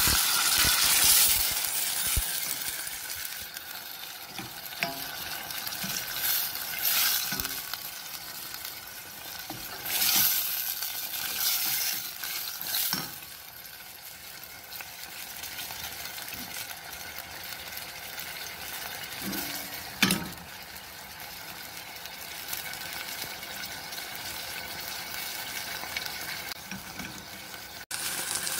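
Chopped onions and tomatoes sizzling in oil in a stainless steel saucepan, stirred with a wooden spoon that scrapes and knocks against the pan every few seconds. The loudest knock comes about two-thirds of the way through.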